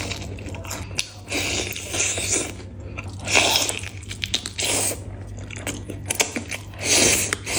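Close-miked eating: crunchy bites and chewing in about four separate bursts, over a low steady hum.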